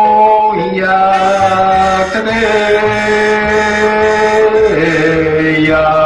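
The drawn-out sung call of a stone-roasted sweet potato vendor, 'ishi-yaki-imo', chanted in long held notes over backing music, the pitch stepping down, then up, then down again.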